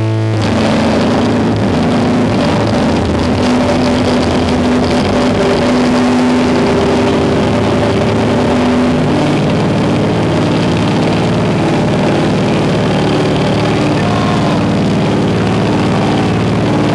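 Live noise rock played very loud: heavily distorted electric guitar with drums, a dense, grinding wall of sound with held low notes. About half a second in, a held, ringing chord gives way to the full band.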